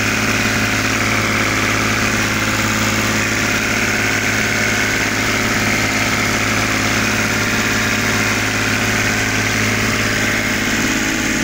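Sailboat's inboard engine running steadily at cruising speed, heard up close in the engine compartment; it is being run up to temperature to test a repaired heat exchanger.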